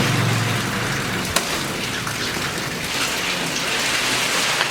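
Steady rain falling, with a single sharp knock about a second in.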